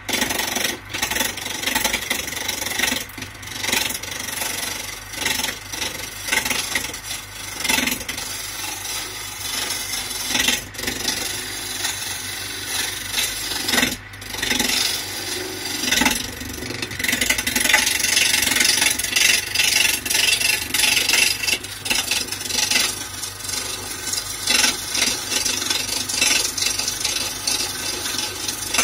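A turning gouge cutting a spinning wood blank on a wood lathe: a continuous scraping hiss of shavings peeling off, swelling and dipping as the tool bites in and eases off, over the steady low hum of the lathe running.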